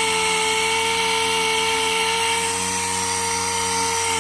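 Pneumatic random orbital air sander running at full speed against a wooden chair seat: a steady whine over a hiss of air.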